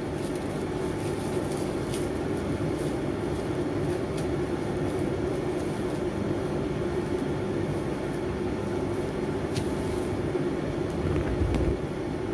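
A steady low mechanical hum runs throughout, with a few brief rustles and clicks of thin paper sheets being shaken out and handled.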